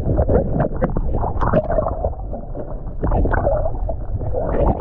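Water splashing and gurgling against the side of the boat as a sailfish is released, many short irregular splashes over a steady low rumble.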